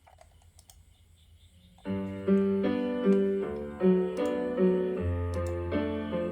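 Piano intro of a pop song played back through a portable Bluetooth speaker. A few faint clicks come first, and the piano starts about two seconds in with a steady repeating pattern of notes.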